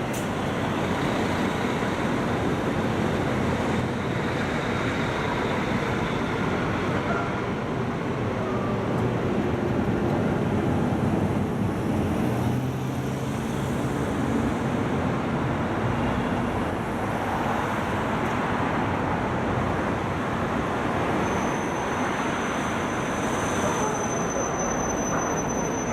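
Steady urban road traffic: cars and other vehicles running and passing at a signalled junction. A thin, high steady tone joins in about three-quarters of the way through.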